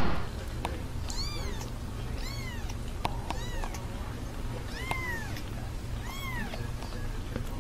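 Young kitten mewing: five short, high-pitched mews, each rising and then falling in pitch, about a second or more apart.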